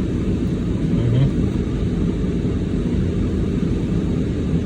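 Steady low rumble of a car heard from inside the cabin, like an idling engine. A short murmur from the man eating comes about a second in.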